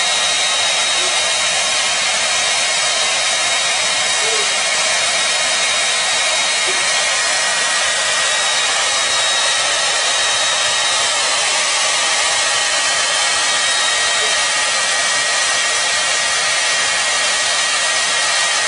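Handheld hair dryer running steadily on high, a continuous rush of blown air with a thin, steady whine through it.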